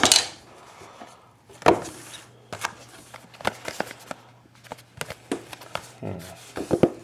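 Shrink-wrapped cardboard boxes of trading cards being handled and set down on a tabletop: a scattering of light knocks and crinkles of the plastic wrap, the sharpest about two seconds in.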